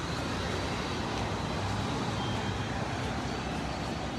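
Steady street traffic and engine noise with no distinct events.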